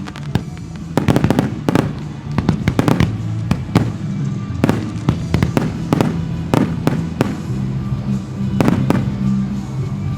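Fireworks shells bursting in quick, irregular succession, a run of sharp bangs, with music playing underneath.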